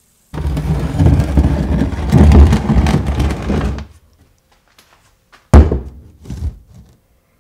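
A loud rustling, scraping noise for about three and a half seconds, then a sharp knock about five and a half seconds in as a metal whetstone holder is set down on a wooden workbench, followed by a couple of lighter knocks.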